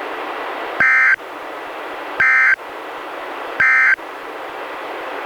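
NOAA Weather Radio broadcast sending the EAS/SAME end-of-message code: three short bursts of two-tone digital data, each about a third of a second and spaced about 1.4 seconds apart, over steady radio hiss. The bursts mark the end of the weekly test alert.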